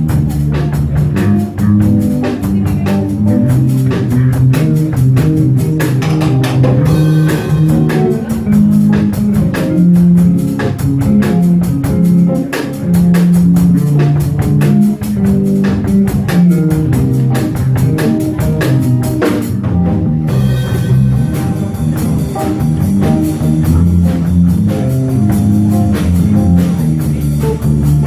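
Small jazz combo playing live, with bass and piano notes under steady drum-kit and cymbal time.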